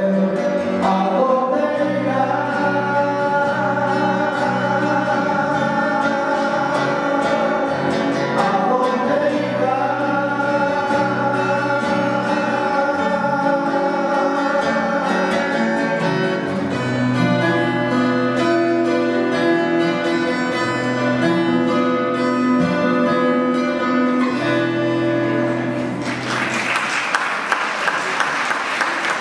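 Two men singing a ballad in harmony, accompanied by two plucked acoustic guitars. The song ends near the end and is followed by applause.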